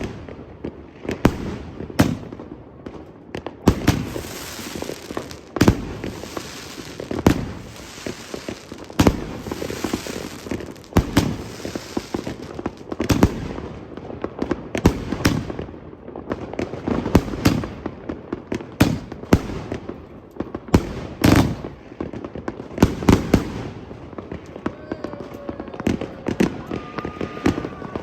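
A 99-shot fireworks cake firing a rapid run of shots: sharp bangs about every second or two, with a stretch of crackling a few seconds in.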